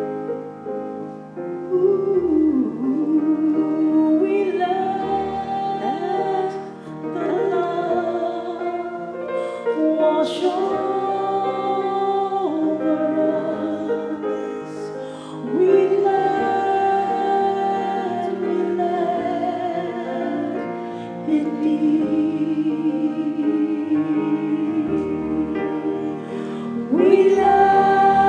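A woman sings a slow, sustained solo into a microphone over keyboard chords. Her voice comes in about two seconds in, over accompaniment that is already playing.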